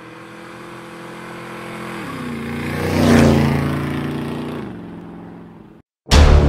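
A motorcycle passing by: the engine sound swells to its loudest about three seconds in, with drops in pitch before and after, then fades away. After a brief silence a loud music hit starts near the end.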